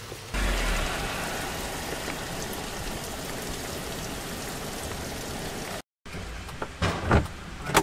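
Heavy rain pelting the windshield and body of a vehicle, heard from inside the cab as a dense, even patter. It breaks off suddenly about six seconds in, and a few short, louder sounds follow near the end.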